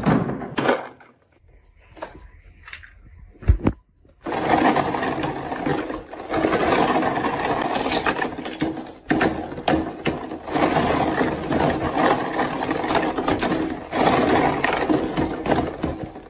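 Marbles rolling and clattering down a wooden HABA marble run: a few scattered clicks and one sharp thud about three and a half seconds in, then a continuous rolling rattle full of small clicks.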